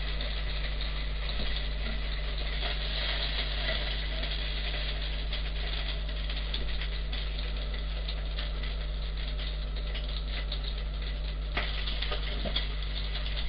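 A rib searing in a frying pan on full heat: a steady sizzle with crackling spatter, with a few sharper crackles near the end.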